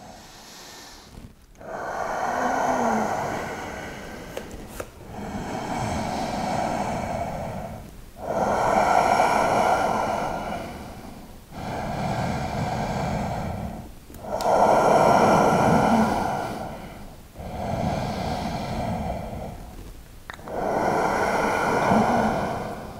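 A man breathing deeply and audibly, slow long breaths in and out about every two to three seconds, while holding a deep standing forward fold.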